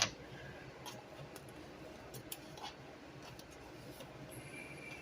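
Quiet kitchen handling while seasoning is measured into flour: a sharp click at the start, then a few faint light ticks and taps.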